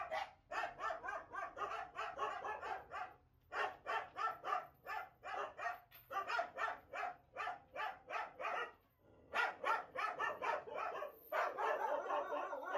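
A dog barking in quick runs of about three barks a second, with short pauses between runs.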